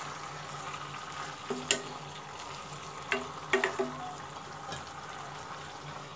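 Hilsa fish heads and tails frying in oil and spice paste in a non-stick wok: a steady sizzle, with a few short clicks of a utensil against the pan.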